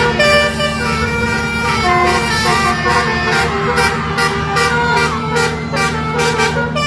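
Multi-tone musical bus air horn (telolet) playing a quick tune over a steady low drone, its notes changing every fraction of a second, with short hissy blasts through the middle.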